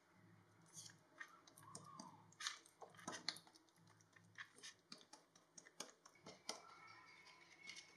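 Faint, irregular soft crackles and squishes as fingers press and pat a ball of wet ragi (finger millet) dough flat on an oiled plastic sheet.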